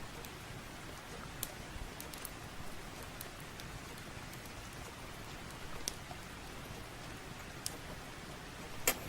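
Steady rain with a few sharp pops and crackles from a wood fire scattered through it, the loudest near the end.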